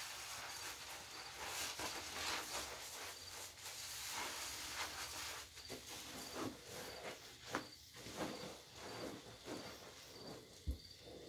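Sponges being squeezed and worked by gloved hands in a basin of thick soap foam: wet squelching and crackling of suds, with a steady fizz of popping bubbles. There is a single soft thump near the end.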